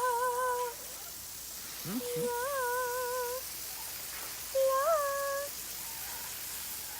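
Three short hummed notes, each wavering in pitch, over a faint steady hiss.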